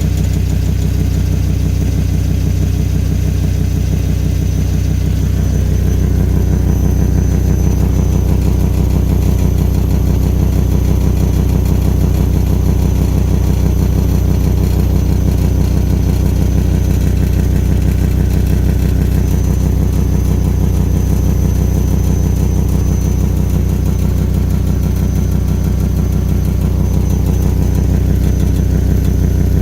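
Volvo V70 XC's five-cylinder engine idling steadily, a little louder from about six seconds in. The exhaust system is leaking.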